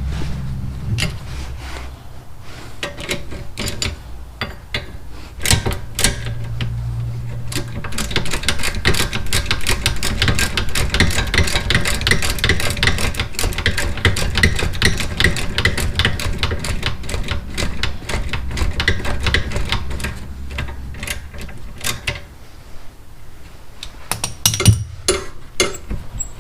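Ratchet wrench clicking rapidly and steadily for most of the stretch as a bolt on the rear brake assembly is backed out with a 17 mm socket. A few metal clinks come near the end.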